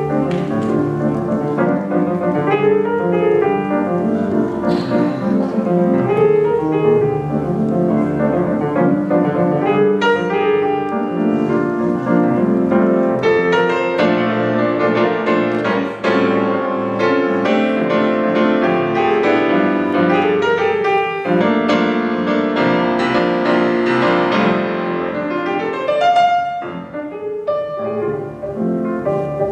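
Steinway grand piano played solo: busy, continuous playing with many notes sounding at once, easing off briefly a few seconds before the end.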